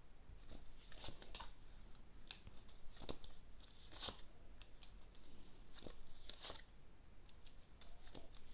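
Tarot cards being shuffled and laid out by hand: faint, scattered soft taps and rustles of card stock, about a dozen irregular handling sounds.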